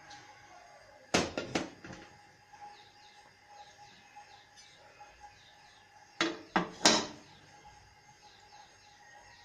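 Aluminium cooking pot and its lid knocking against the steel gas stove: a quick cluster of metallic clanks about a second in as the pot is set on the burner grate, then three more clanks near seven seconds as the lid is lifted off and set down.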